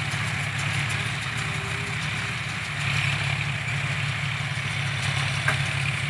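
John Deere tractor's diesel engine running at a steady speed, with a steady mechanical hiss above it from the round baler it drives. There is a single sharp click about five and a half seconds in.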